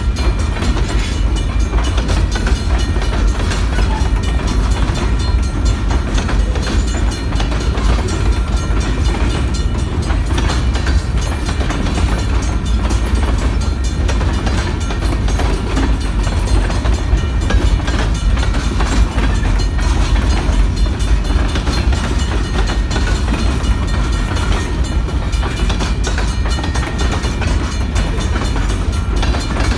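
Freight train cars, a tank car and open-top hoppers, rolling past in a steady rumble, with wheels clicking over the rail joints throughout.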